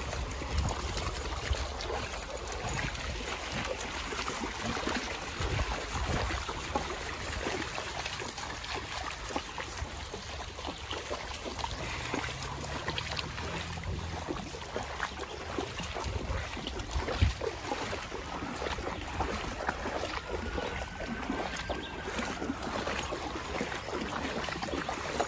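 Shallow creek water running over rocks, with irregular splashing as dogs wade and trot through it, over a low steady rumble.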